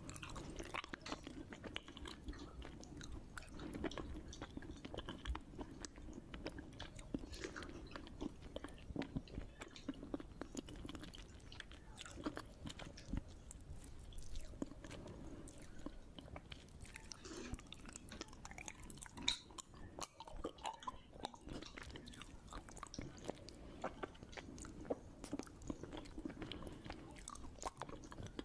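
A person eating khichdi by hand and chewing soft mouthfuls close to the microphone, with many small, irregular wet mouth clicks and smacks.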